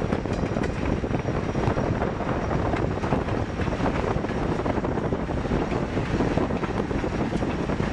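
Diesel locomotive hauling hopper cars, heard as a steady, even rumble mixed with heavy wind buffeting the microphone.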